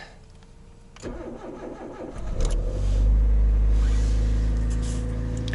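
Cold start of a Toyota 3SZ-VE 1.5-litre four-cylinder petrol engine at about −20 °C, freshly rebuilt: a click, about a second of starter cranking, then the engine catches and runs on at a steady, even cold idle with no knock.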